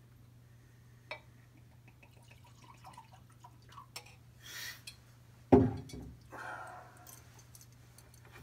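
Bourbon poured from a glass bottle into a tumbler, then a loud knock about five and a half seconds in as the glass bottle is set down on a wooden dresser, followed by a short sip.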